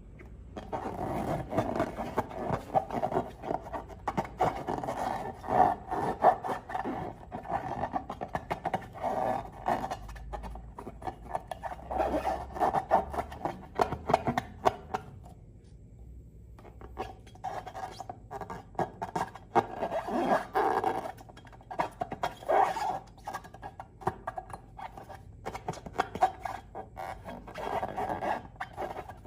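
Slime-filled long balloons being squeezed and rubbed by hand, giving irregular squishing, crackling and squeaking, with a short pause a little past halfway.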